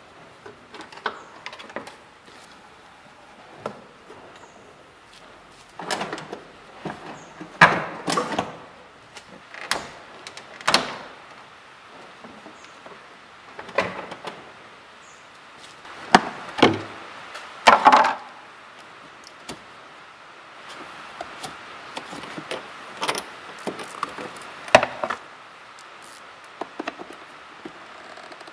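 Irregular clicks, knocks and clunks of parts and tools being handled in a car's engine bay, including the plastic-tanked radiator being unclipped and lifted out.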